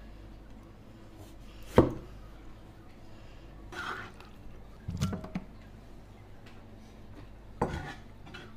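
A cleaver knocking against a plastic cutting board while slicing coconut snail meat: a few sharp knocks, the loudest about two seconds in, with a pair about five seconds in and one more near the end.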